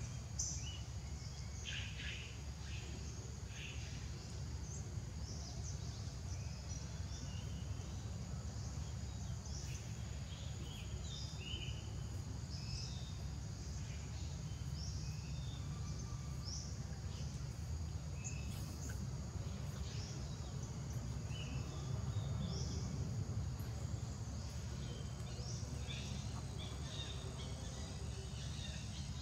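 Forest ambience: a steady high insect drone with many short, scattered bird chirps over a low, steady rumble.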